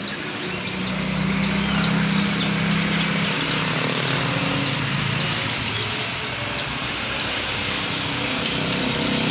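An engine running steadily: a low hum over a noisy background, stronger in the first few seconds and again near the end.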